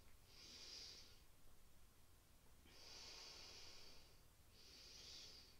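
Faint breathing of a woman holding a standing forward bend: three breaths, each a soft hiss, the middle one the longest.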